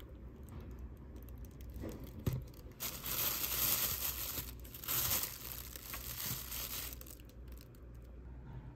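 Thin clear plastic bag holding scones crinkling as a hand grips and handles it. It is loudest between about three and five seconds in and fades toward the end.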